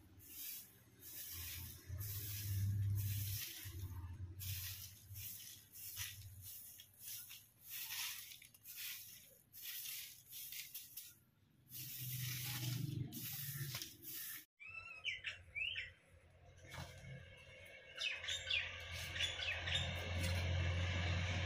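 Repeated surges of hissing over a low hum for most of the clip, cut off suddenly about 14 seconds in; then birds chirping, the calls growing busier near the end.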